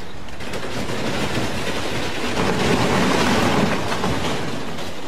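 Hydraulic excavator's demolition shear tearing into an aircraft's aluminium airframe: a continuous grinding, screeching crunch of metal, loudest a little past the middle.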